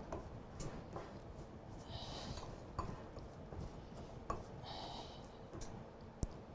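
Quiet kitchen sounds: a few faint light clicks, and two short soft hisses about two and five seconds in.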